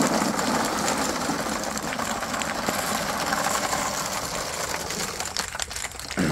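Ping pong balls pouring from a plastic tub into a clear plastic jar and bouncing off the floor: a dense, rapid rattle of light plastic clicks that eases off near the end.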